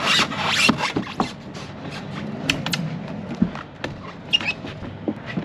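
A window air-conditioning unit being pulled through a tight wooden opening: a scraping rush in the first second, then scattered knocks and clunks as its case bumps against the wood.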